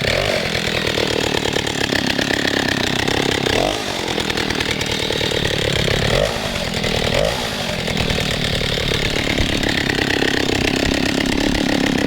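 Stihl 08 S two-stroke chainsaw engine running, just brought back to life after standing unused for about 15 years. Its revs dip and pick up again twice, about four seconds in and around six to seven seconds in.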